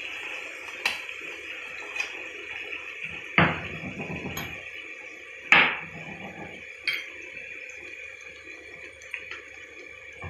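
Golgappa puris deep-frying in hot oil in a kadhai, a steady sizzle. A metal slotted spoon knocks and scrapes against the pan about six times, loudest about three and a half and five and a half seconds in.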